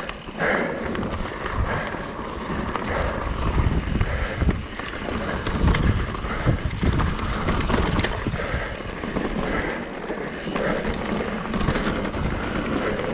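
Mountain bike riding a rocky gravel trail: tyres rumbling and crunching over stones, with irregular knocks and rattles from the bike and steady wind noise on the microphone.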